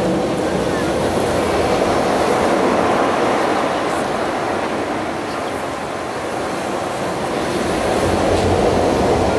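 Steady rushing, rumbling noise from the light show's soundtrack over loudspeakers in the open square, dipping slightly about six seconds in.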